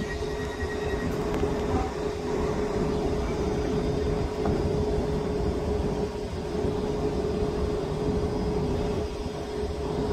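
Electric multiple unit standing at the platform, humming with one steady mid-pitched tone over a low rumble.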